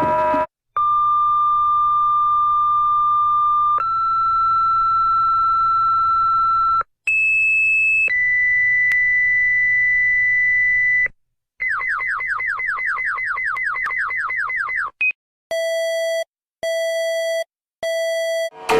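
A chain of synthesized alarm tones of the emergency-alert kind. It opens with a long steady beep that steps slightly up in pitch about three seconds in. Then come a short buzzy burst, a higher steady tone, and a run of rapid falling chirps, several a second, and it ends with three short beeps about a second apart.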